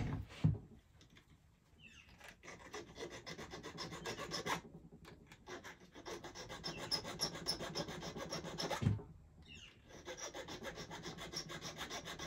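A small hand file rubbing back and forth on silver in quick, even strokes, flattening the two ends of a ring seat so they meet without a gap for soldering. A couple of knocks come near the start. Another knock comes near nine seconds, and the filing pauses briefly before starting again.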